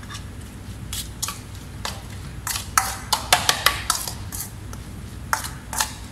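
A utensil clinking and knocking against a mixing bowl while coleslaw is stirred together with mayonnaise and seasoning. The strikes come irregularly, several quick ones bunched in the middle.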